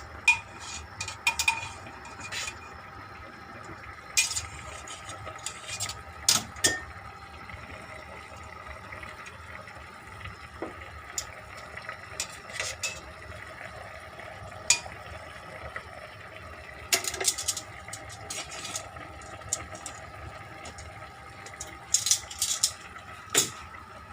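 Kitchen utensils clinking and knocking against dishes and a pot in scattered, irregular strikes, over a steady faint background hum.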